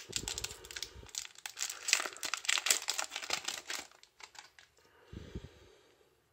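Foil wrapper of a Yu-Gi-Oh! booster pack crinkling and tearing as it is ripped open. The crinkling dies down after about four seconds, leaving a few light handling clicks and a soft thump about five seconds in.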